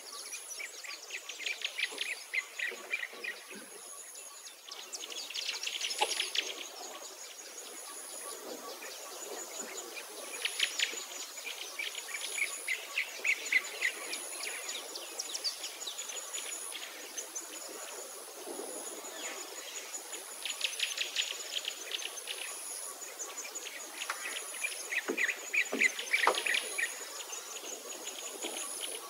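Birds chirping and trilling in repeated bursts of a second or two, over a thin, high tone that pulses on and off.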